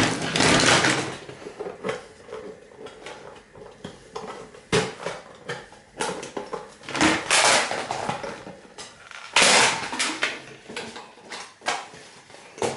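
A plastic game console casing being pulled and pried apart by hand: irregular clattering, cracking and scraping, in several loud bursts about a second long with smaller knocks and clicks between them.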